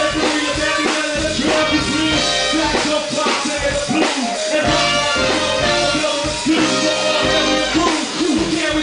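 Live hip-hop with a band: an MC raps into a microphone over drums and sustained keyboard and band parts.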